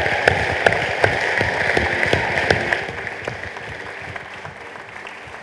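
Crowd applauding: dense clapping that is loud for the first few seconds, then thins and fades.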